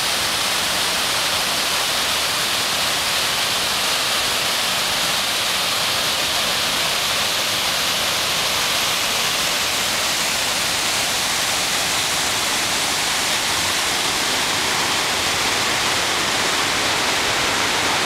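An about 85-foot waterfall plunging into a rocky stream: a steady, unbroken rush of falling water.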